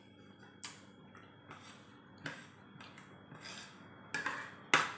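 Metal spoon clinking and scraping against a ceramic plate of rice while eating: a series of short, light clinks, the loudest near the end.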